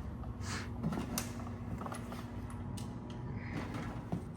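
Low steady hum of room tone with a few faint light clicks and knocks.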